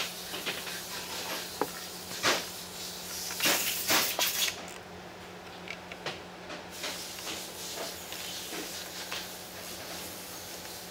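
Hand ratchet and socket tightening the steel oil-pan bolts on a 4L60E transmission: scattered clicks and metal clinks of the tool on the bolts and pan, busiest a little under halfway through.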